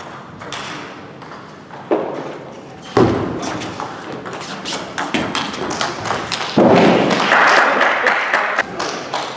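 Table tennis rally: the celluloid ball clicks sharply off the rackets and the table in quick succession. About two thirds of the way in, as the point ends, a louder noisy burst lasts about two seconds.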